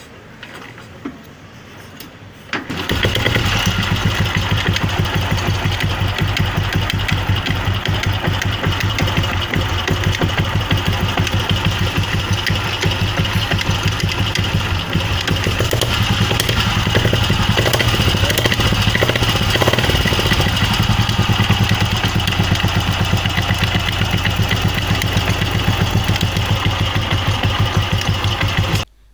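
Royal Enfield Bullet Electra's cast-iron single-cylinder engine starts about three seconds in and runs with a steady, even beat, carrying a noise from the clutch that the mechanic puts down to a loose clutch (primary) chain. The sound cuts off abruptly just before the end.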